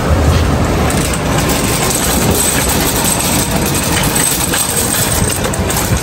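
Metal shopping cart loaded with paper grocery bags rattling and rumbling steadily on its wheels as it is pushed along.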